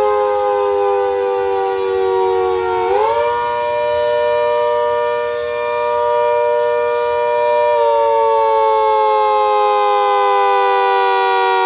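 Mini Hurricane rotating siren sounding the attack signal, a chord of several pitched tones. It slowly sags in pitch, climbs sharply about three seconds in, and holds steady for about five seconds. Then it slowly sags again and begins another sharp climb at the very end.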